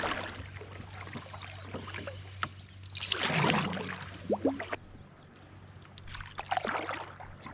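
Canoe paddle strokes in calm loch water: a wooden single-blade paddle swishing and gurgling through the water in slow strokes, about one every three seconds, over a low steady hum.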